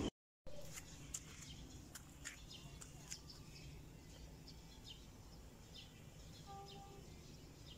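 Faint outdoor evening ambience with small birds chirping: short, high chirps scattered throughout over a low, steady background hum. The sound cuts out for a moment at the very start.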